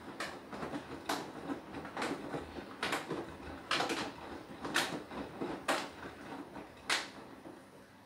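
Beko WTK104121W washing machine drum tumbling through its Anti Allergy wash, with the laundry thudding and swishing about once a second over a low hum. The thuds die down near the end as the drum slows.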